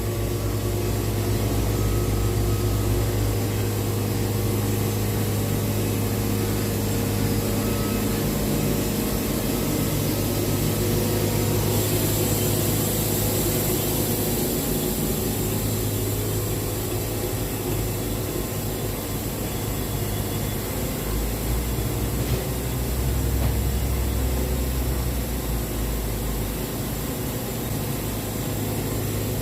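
Sawmill engine running steadily under load as the blade saws a board off a poplar log, with the cutting hiss swelling about halfway through.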